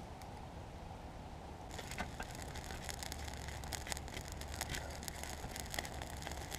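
Newly lit wood fire of birch bark and small twigs crackling, with a dense run of sharp snaps and pops starting about two seconds in.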